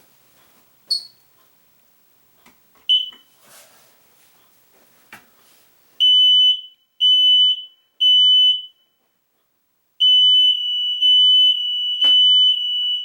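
Smoke alarm sounding its test pattern: two short chirps, then three loud steady beeps about a second apart, a pause, and three more beeps, with a sharp knock during the last one. It shows the newly installed alarm is powered and reset to work.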